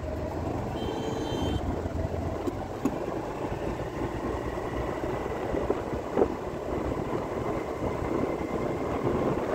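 Steady engine and road rumble of a vehicle on the move.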